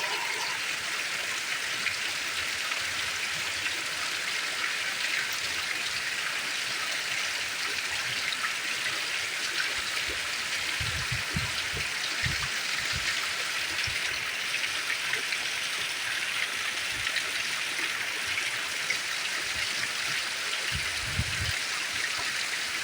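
Steady rain falling, an even hiss, with a few brief low bumps about halfway through and again near the end.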